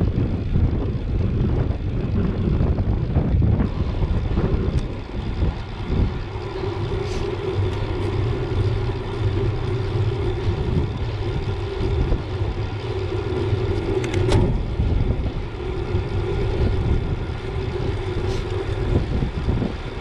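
Wind buffeting the microphone and road traffic noise during a road bike ride. A steady hum joins in about six seconds in and runs on until shortly before the end.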